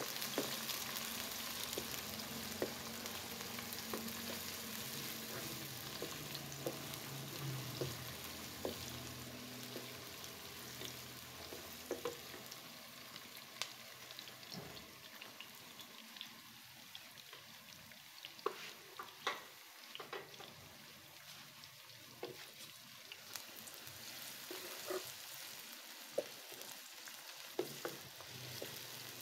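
Sliced onions freshly added to hot oil, sizzling in a non-stick wok while being stirred with a wooden spatula. The sizzle is strongest at first and softens after about ten seconds, with scattered sharp ticks and taps throughout.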